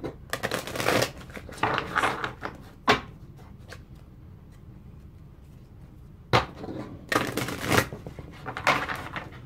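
A deck of oracle cards being shuffled by hand: bursts of cards sliding against each other, with a couple of sharp taps and a quieter pause of a few seconds in the middle.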